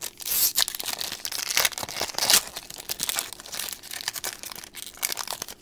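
Foil trading-card pack wrapper being torn open and crinkled by hand: a dense run of crackling rustles that thins out near the end.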